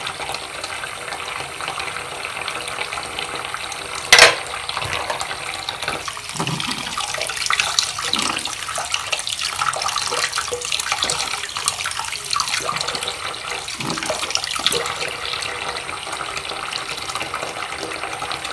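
Hot water running steadily from a tap into a sink of soapy water, with small plastic tubes being rinsed under the stream. A single sharp knock about four seconds in.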